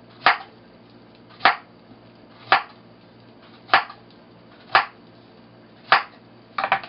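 Kitchen knife slicing ripe yellow plantain into rounds on a wooden cutting board: six sharp knocks of the blade hitting the board, about one a second, then a quick cluster of lighter knocks near the end.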